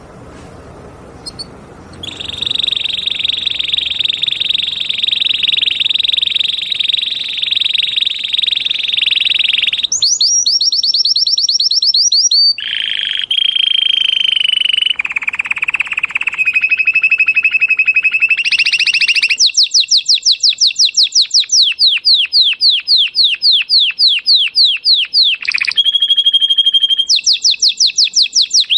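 Canary singing loudly in a string of rolls and trills. A fast, even, high trill starts about two seconds in and holds for some eight seconds. Then come shifting runs of rapid repeated notes, the later ones quick downward-sweeping whistles at about six a second.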